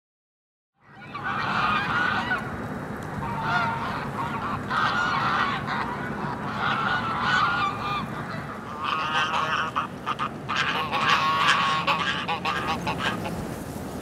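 White domestic geese honking over and over, starting about a second in, with a quicker run of overlapping honks a few seconds before the end.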